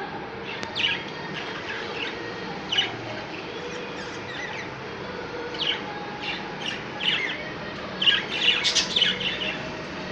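Budgerigars chirping in short scattered calls, with a quick run of several overlapping chirps near the end.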